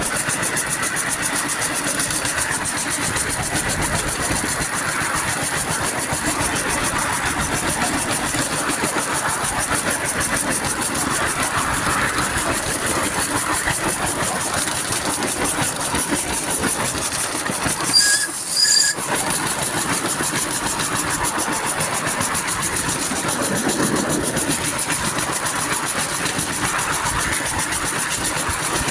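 Small miniature-railway steam tank locomotive running on test, with a rapid, even beat throughout. About two-thirds of the way through it breaks briefly for two short high-pitched toots.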